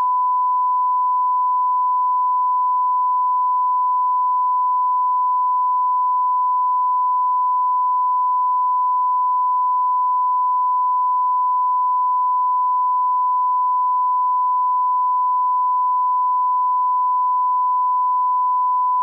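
Steady 1 kHz sine-wave test tone, the classic television no-signal sound, held at one pitch and level without a break.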